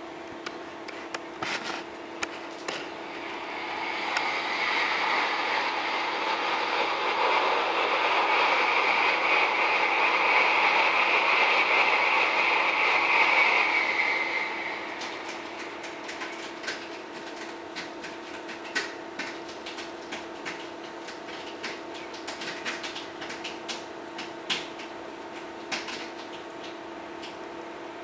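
Played-back sound of a passing train: a rushing noise that builds over several seconds, peaks and fades away about halfway through. Under it runs a steady hum, with scattered light clicks.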